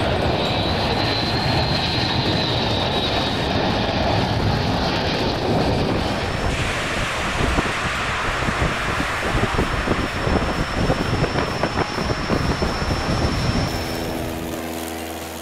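Jet engines of a four-engined C-17-type transport running on a snow runway, a steady rush with a high turbine whine. About six and a half seconds in it changes to a harsher crackling rumble from a C-130-type turboprop making a rocket-assisted take-off with its rocket bottles firing. Music comes in near the end.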